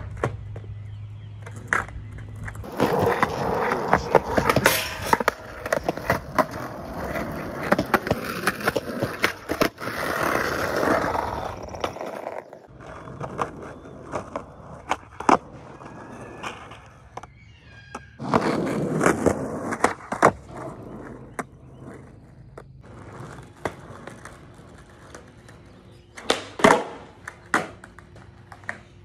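Skateboard wheels rolling over rough pavement, broken by many sharp clacks of the tail popping and the board slapping down on landings and bails during flip-trick attempts.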